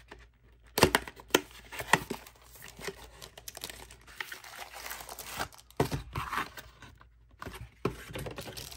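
Cardboard packaging box being opened by hand: sharp snaps and knocks, loudest about a second in, then irregular scraping and rustling of cardboard and the case's plastic wrapping as it is slid out and set down.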